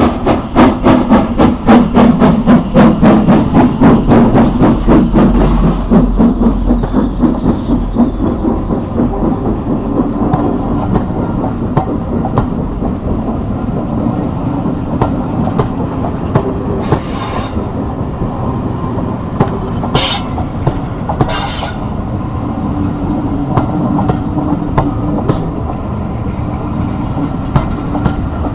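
Austerity 0-6-0 saddle tank steam locomotive working hard as it pulls away, its exhaust chuffing loudly about three beats a second, then fading into the rumble and wheel clicks of the passing train. Three short high-pitched sounds come about two-thirds of the way through.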